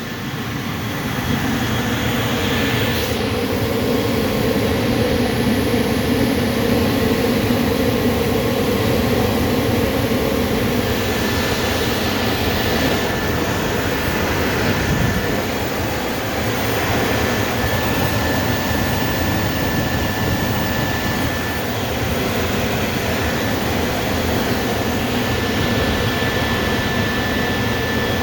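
Gas furnace running: a steady rushing of burner flame and fans with a faint high whine, growing louder about a second in.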